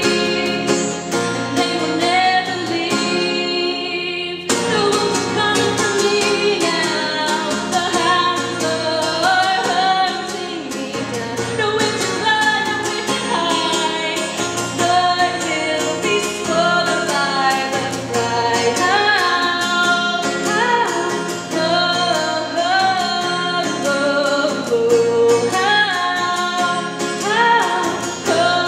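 A woman singing live, accompanying herself on acoustic guitar.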